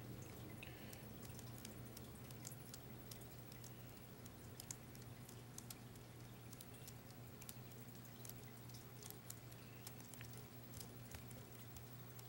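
Near silence: room tone, a faint steady low hum with scattered faint ticks.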